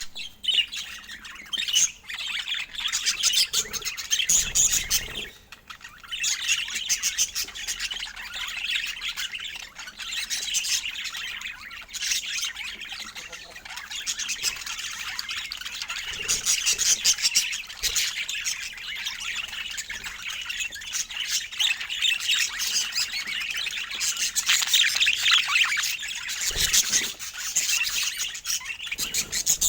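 Budgerigars chattering and warbling continuously, a dense run of fast chirps and squawks with a short lull about five seconds in.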